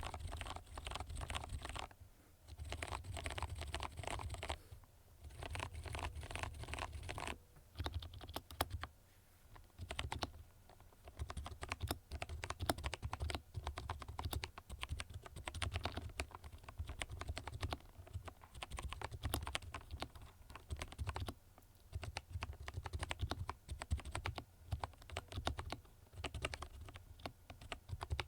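Filco Majestouch Minila Air mechanical keyboard with Cherry MX Brown switches being typed on: dense runs of fast keystrokes in the first seven seconds, broken by short pauses, then looser typing with separate key clicks. The switches are oiled, the keycaps fitted with O-rings and the PCB taped, which damps the clack.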